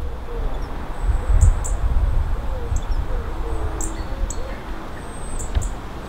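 Small songbirds giving short, high, thin calls, several in quick succession with a drawn-out high whistle or two, over a steady low rumble of wind on the microphone.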